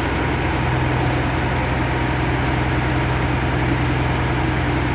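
Heavy diesel engine of a crane running steadily at a constant speed, a low, even hum.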